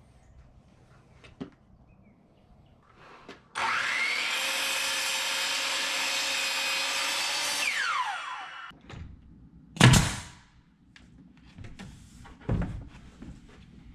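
Sliding compound miter saw cutting a pine board: the motor runs at a steady whine for about four seconds, then its pitch falls as the blade spins down. A loud thump follows about two seconds later, and a smaller one near the end.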